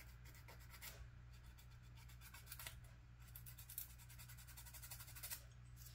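Faint, quick scraping strokes of a hobby tool on a small plastic model figure part, cleaning off mould seams and sprue marks, in several short bursts over a low steady hum.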